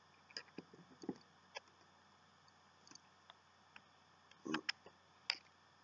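Faint, scattered small clicks and taps of metal dripper parts being handled as the top cap is fitted onto a Mirage V3 rebuildable dripping atomizer, with a louder short cluster of clicks about four and a half seconds in.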